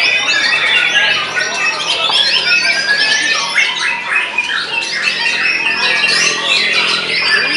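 White-rumped shamas singing: rapid, varied whistled phrases and trills, several songs overlapping without a break.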